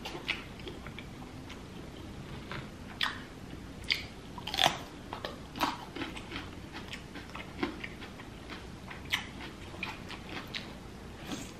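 Close-miked, ASMR-style eating: wet chewing and lip smacks over a mouthful of sauced king crab meat and sausage, with irregular sharp clicks, the loudest about four and a half seconds in.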